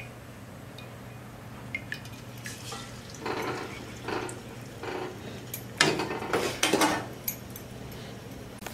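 A metal slotted spoon scrapes and clinks against a deep frying pan (kadhai) as a batter-dipped bread pakora is put into hot oil and settled, in a run of short scrapes that is loudest about six to seven seconds in. A faint sizzle of the oil lies beneath.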